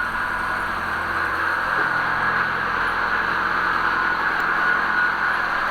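Steady mechanical drone, a low even hum with a constant hiss over it, unchanging throughout.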